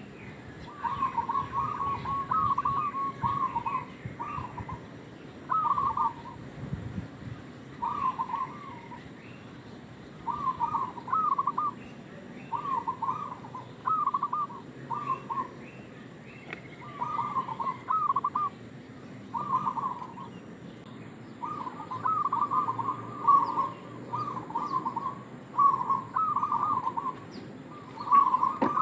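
Zebra dove (perkutut) cooing: short phrases of quick staccato coos, repeated every second or two.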